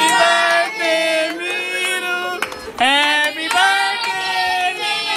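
High-pitched singing in a child's voice, a melody of long held notes in short phrases with a brief break about halfway through.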